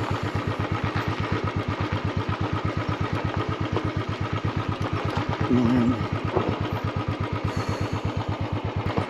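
Motorcycle engine running at low, steady revs, with an even exhaust beat that does not change in pitch.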